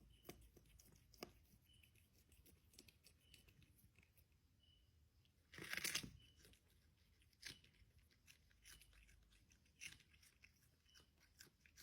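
An animal chewing and tearing at food with scattered crisp crunches. There is one louder tearing crunch about six seconds in.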